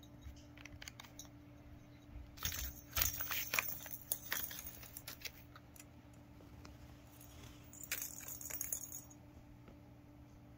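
Small toy bell ball jingling and rattling inside a cardboard accordion cat scratcher as a cat bats at it. It comes in two bursts: one starting about two seconds in and lasting about three seconds, and a shorter one around eight seconds in.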